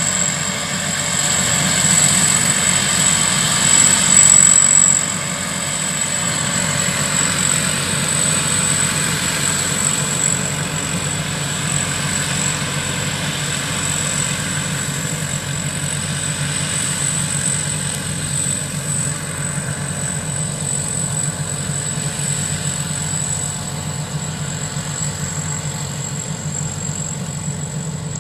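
Thai Charoen Kanchang rice combine harvester running steadily under load, a continuous engine drone with a thin high whine over it, a little louder in the first few seconds.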